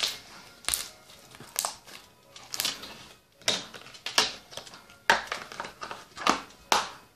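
Slime squeezed and pressed by hand, giving a string of sharp, wet pops and clicks as air bubbles trapped in it burst, about one a second at an uneven pace.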